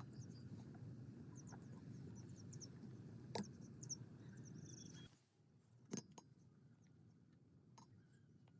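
Near silence: a faint low background rumble that drops away suddenly about five seconds in, with a few faint taps and some faint high chirps.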